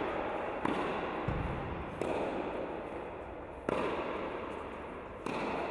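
Tennis balls struck by rackets in a practice rally on an indoor court: four sharp hits about a second and a half apart, each ringing on in the hall's echo.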